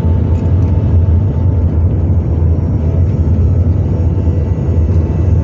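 Engine of an oil-spill response power pack running steadily at constant speed: a low, even rumble.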